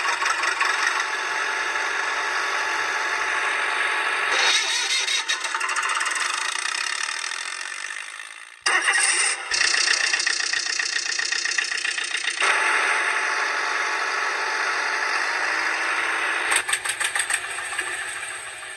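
Engine sound, starting and running, cut together in segments that change abruptly every four seconds or so. It sounds thin, with almost no bass.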